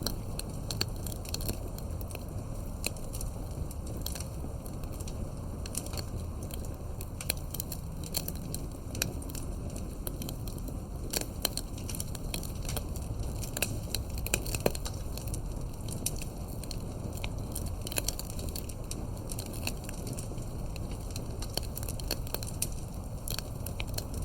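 Campfire burning, with a steady low rumble of the flames and frequent sharp crackles and pops at irregular intervals.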